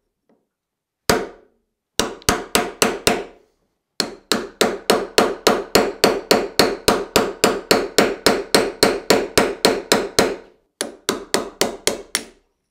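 Hammer blows on a heavy steel punch, driving the old wooden handle out of the eye of a ball-peen hammer head. Sharp metallic strikes, each ringing briefly: a single blow, a quick group of five, then a steady run of about three blows a second, and a last quick flurry near the end.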